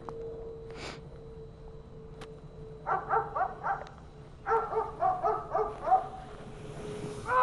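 Dog barking in two quick runs of short, high barks, about four a second, the second run longer than the first.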